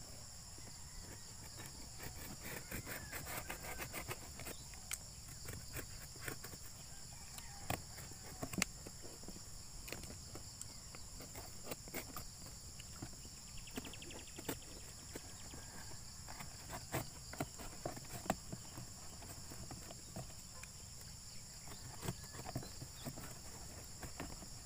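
Utility knife cutting cardboard: scattered short scrapes and clicks, a few sharper ones, as a handle hole is cut through a box flap. A steady high-pitched insect drone runs underneath.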